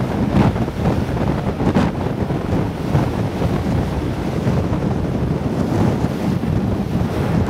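Wind buffeting the microphone on a moving boat: a loud, steady rumble with brief gusts, over the rush of water.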